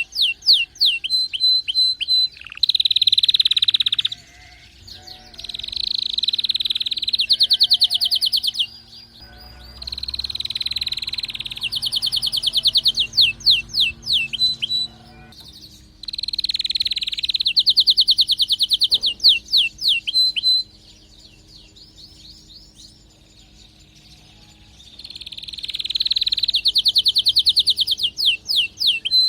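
Domestic canary in breeding condition, singing hard: long phrases of rapid trills and fast sweeping notes, with a quieter pause about two-thirds through before the song picks up again.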